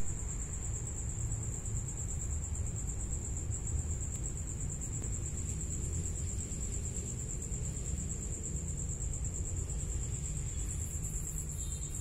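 Steady low background rumble with a continuous, finely pulsing high-pitched trill above it, like an insect's.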